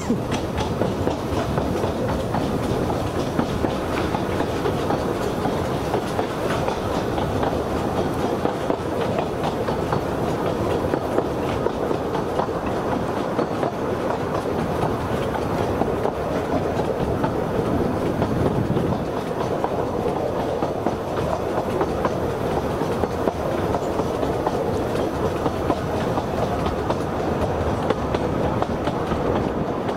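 Narrow-gauge steam railway train running along the track: a steady rumble with fine, continuous wheel clatter.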